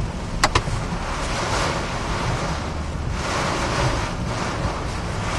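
Hurricane-force wind and driving rain blowing against a moving car, heard from inside as a steady rushing noise, with two sharp knocks close together about half a second in.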